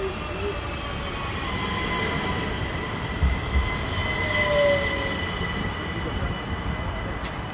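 SNCB Siemens Desiro electric multiple unit arriving at the platform and slowing to a stop: rolling rumble with a thin whine of steady high tones, some sagging slightly in pitch, from the traction drive and brakes.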